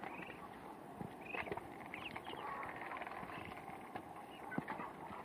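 Three-week-old Muscovy ducklings peeping as they feed, short high calls scattered throughout, with sharp taps of their bills pecking at the feed and the plastic drinker.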